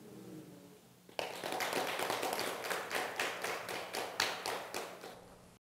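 A small seated audience clapping, many hands overlapping. The applause starts about a second in, thins out and fades near the end.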